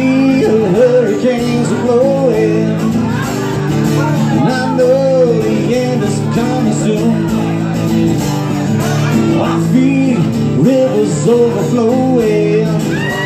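Acoustic guitar strummed in a steady country-rock rhythm, with a man singing over it through a microphone and PA.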